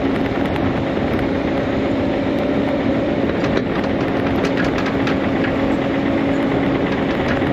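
Bobcat E55 compact excavator's diesel engine running steadily, with a few light clanks about halfway through.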